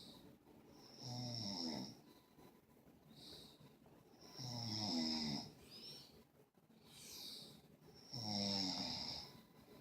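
Snoring in a slow, regular rhythm: three long, wavering snores about three and a half seconds apart, with softer breaths between them.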